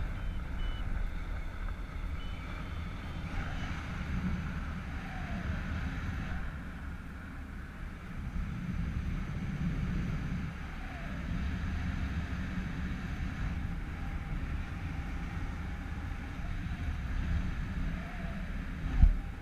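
Wind of the paraglider's flight buffeting a GoPro's microphone: a steady low rumble with slow rises and falls. There is a brief knock near the end.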